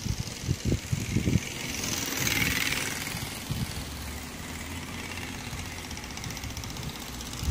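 A plastic card held against a child's bicycle spokes by a home-made fake exhaust, flapping on the spokes in a buzzing rattle meant to sound like an engine as the bike rides past, loudest about two to three seconds in. A few low buffets on the microphone in the first second and a half.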